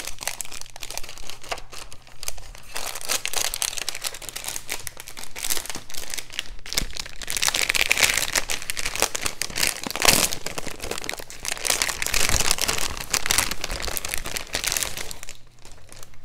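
Clear plastic bags and cellophane wrapping crinkling and rustling as bagged miniature figures and packs of cards are unpacked by hand. The crackling is heaviest in the middle stretch, with a sharp louder crackle about ten seconds in.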